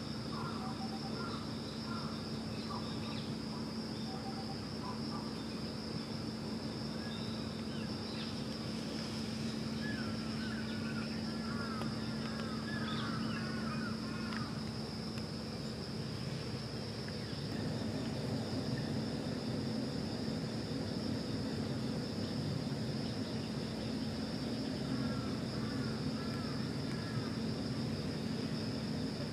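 Steady high-pitched insect chorus over a low steady hum, with a bird giving short series of chirps several times.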